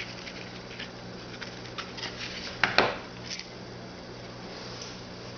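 Trading cards being handled: light clicks and rustles, with one louder short scrape about three seconds in, over a steady low electrical hum.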